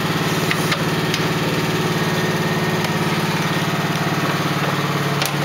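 Small engine idling steadily with an even, fast pulse, with a few light clicks near the start and near the end.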